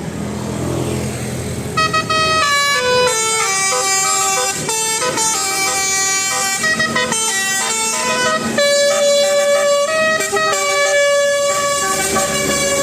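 Basuri telolet multi-tone bus air horn playing a quick tune, its notes stepping up and down several times a second, sometimes two at once, beginning about two seconds in. A vehicle engine runs underneath.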